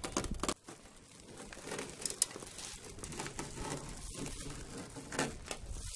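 Duct tape and plastic sheeting being peeled off and handled, crinkling and crackling with a few sharp ticks.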